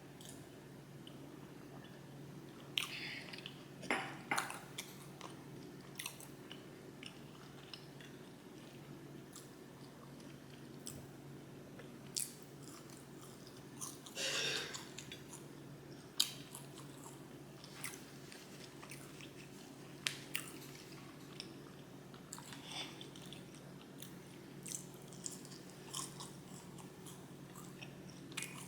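Close-miked mouth sounds of a person eating fried chicken and sides: chewing with scattered sharp clicks and smacks, and a longer noisy burst about halfway through.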